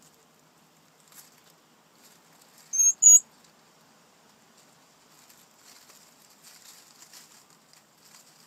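Hedgehog hoglets lapping milk from a saucer and shuffling in dry leaves: faint soft ticking and rustling. Two short, loud, high chirps come close together about three seconds in.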